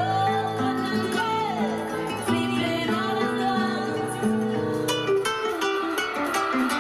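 Recorded dance music over a PA: a repeating plucked-string riff over a low bass, with a high sliding melodic line near the start. About five seconds in the bass drops out and only higher plucked notes remain.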